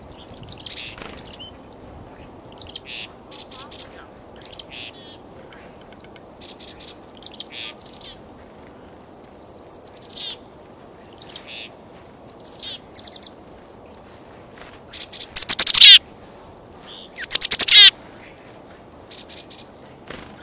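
Black-capped chickadees calling: a scattered run of short, high call notes, with two much louder calls close by about fifteen and seventeen seconds in.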